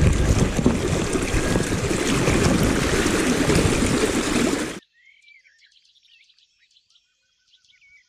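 Rushing river current swirling and splashing around a wading angler's legs, a loud steady watery rush close to the camera. It cuts off abruptly about five seconds in, leaving near silence with a few faint high chirps.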